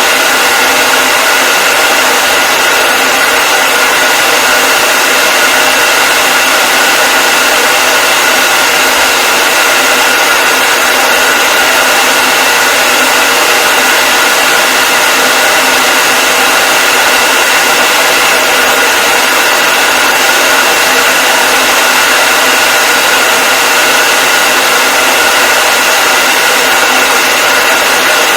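Hair dryer running steadily: a loud, unbroken blowing hiss with a faint steady whine on top.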